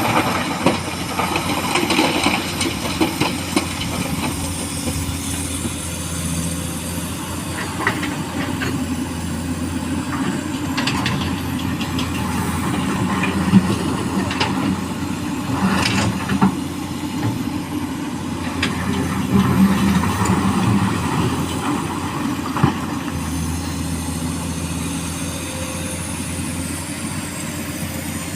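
Diesel hydraulic excavator running steadily while loading small stones into a dump truck, with scattered sharp clacks of stone.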